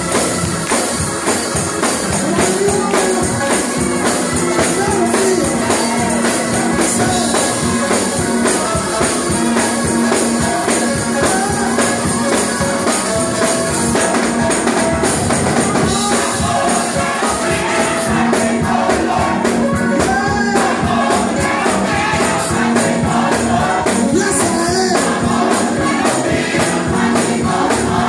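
Live gospel music: voices singing over organ and keyboard, with steady percussion keeping the beat.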